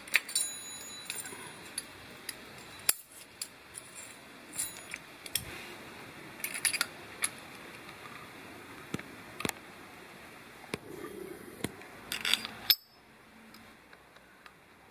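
Small metal clicks and clinks as parts of a turbocharger's variable-geometry vane ring mechanism are handled and fitted together by hand, with a quick run of clicks shortly before they stop near the end.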